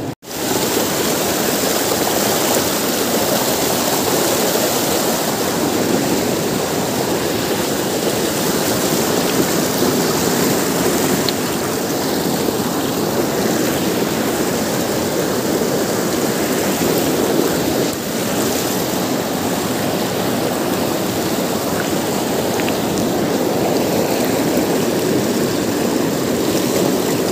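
Fast river water rushing over boulders close to the microphone: a loud, steady whitewater noise.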